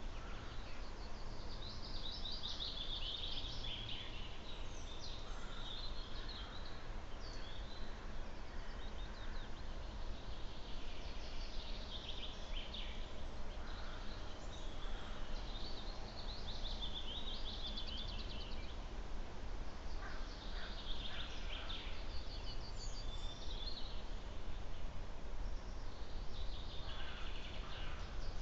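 Wild songbirds singing, with trilled phrases of a second or two coming every few seconds, over a steady low rumble of background noise.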